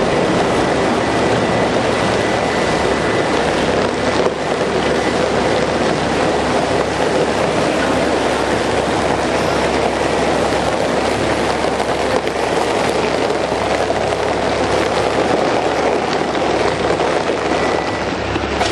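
Heavy machinery running steadily: an even, loud engine-like noise that does not change.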